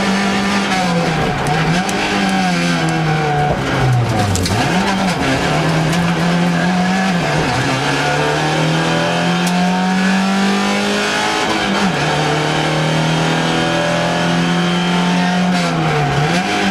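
Suzuki Swift rally car's engine heard from inside the cabin at full effort, its pitch held high and steady, then dipping briefly and climbing back several times as the driver lifts off and gets back on the throttle. The deepest dip comes about four seconds in.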